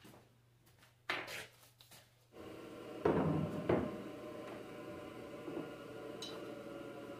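Parts being handled on a workbench: a short clatter about a second in, then a steady hum sets in, with two knocks over it.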